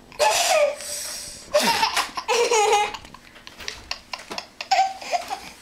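Baby laughing hard in repeated bursts, two long loud ones early on and fainter ones after.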